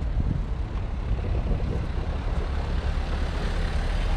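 Tractor's diesel engine running steadily, a continuous low rumble.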